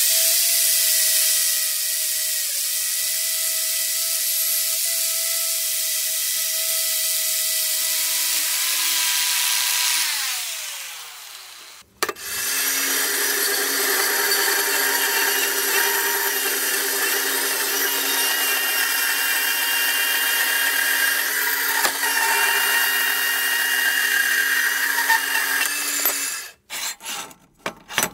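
A power tool working metal runs steadily for about ten seconds and then winds down. About two seconds later it starts again at a lower pitch and runs until near the end, where short choppy bursts follow.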